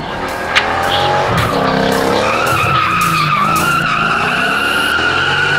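Toyota Mark II drifting through an uphill hairpin: the engine revs up and down while the rear tyres squeal in a long, steady screech that sets in about a second and a half in and holds.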